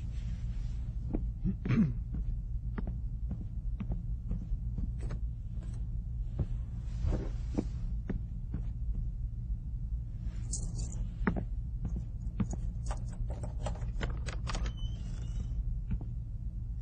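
A steady low hum with scattered soft clicks and small knocks on top. The loudest is a short knock with a quick pitch glide about two seconds in, and a quicker run of clicks comes in the second half.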